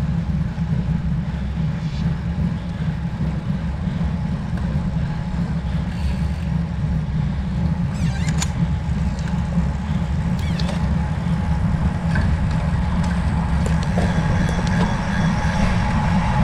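Steady low wind rumble on the microphone of a camera riding on a road bicycle in motion, with faint road noise underneath.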